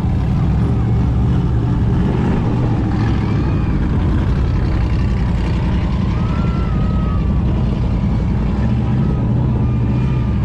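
Vehicle engine running steadily with a heavy, continuous low rumble.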